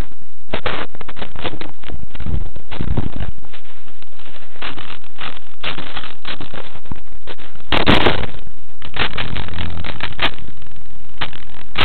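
Loud, crackling wind buffeting on the small onboard camera's microphone of an RC model airplane in flight, coming in irregular gusty rushes with the strongest about eight seconds in.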